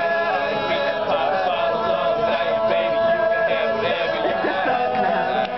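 Male a cappella group singing a pop/hip-hop cover, several voices holding steady chords in close harmony.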